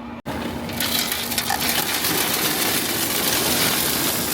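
Wood pellets for a Traeger pellet grill being poured from a bag into the hopper: a steady rattling rush of many small pellets that starts about a second in.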